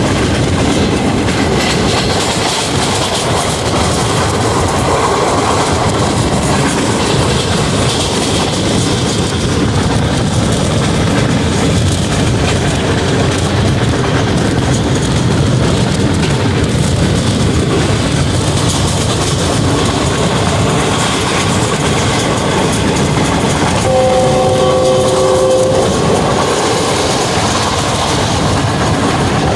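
Passenger rail car running at speed on the track, a steady loud noise of wheels on rails and rushing air. About 24 seconds in, a train horn of several tones sounds once for about two seconds.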